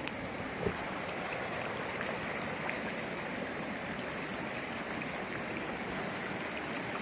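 Steady rushing of a fast, shallow mountain river running over a stony riffle, with one light knock less than a second in.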